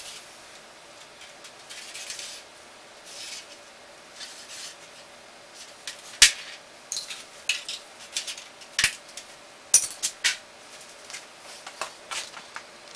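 Sheet steel pieces shifted and pressed together on a concrete floor while a patch pattern is traced: scattered light metallic clicks and clinks in the second half, the sharpest about six seconds in and a quick run of them around ten seconds.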